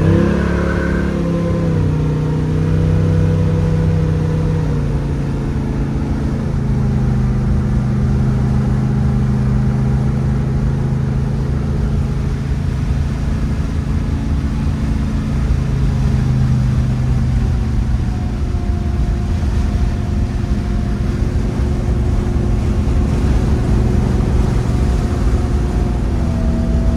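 A 1967 Chevrolet Chevelle's 427 big-block V8 accelerating away, its revs rising in the first second, then running at a steady cruise with road and wind noise through open windows.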